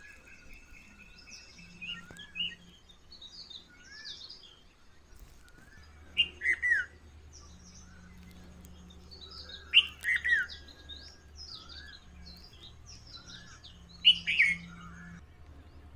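Several birds singing and calling. One louder bird repeats the same short song phrase three times, about four seconds apart, over a faint low hum.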